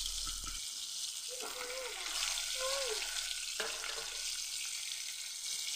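Pieces of fish sizzling steadily as they fry in hot oil in a kadai.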